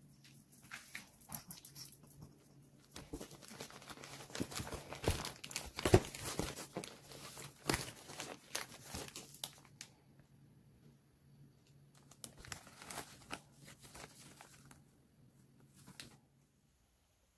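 Packaging being opened and handled: a cardboard carton and a plastic-wrapped pack of dog diapers crinkling, rustling and tearing. The handling comes in a long dense stretch from about three seconds in, then a second, lighter spell of rustling later.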